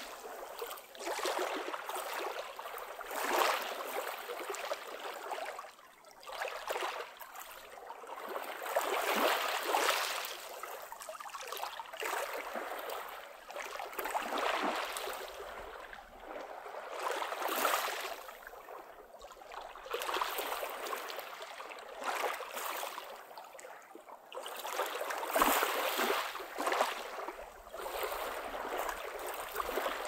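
Small waves of a calm sea lapping and washing over a pebble beach, in irregular surges every two to three seconds.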